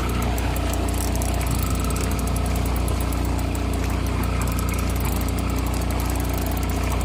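A boat engine running steadily at idle, a constant low hum.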